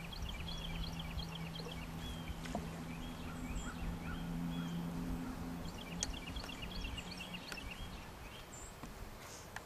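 Birds calling: two quick chattering runs of short high chirps, one at the start and one about six seconds in, with scattered single chirps between. They sound over a steady low hum that fades out near the end, and a low rumble.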